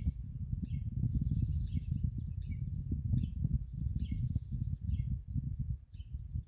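Insects trilling high in pulses, with scattered short bird chirps, over a low, uneven rumble of wind on the microphone.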